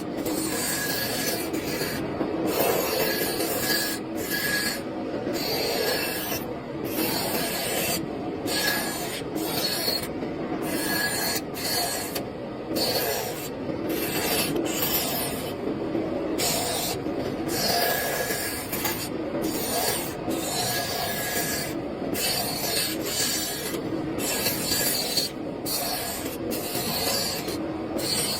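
Abrasive hand work on wood: a continuous rough scraping and rubbing in repeated strokes, with short breaks every second or so.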